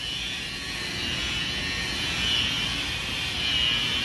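Electric rotary car polisher with a foam pad buffing car paint: a steady motor whine over a low hum, the whine swelling and easing a few times.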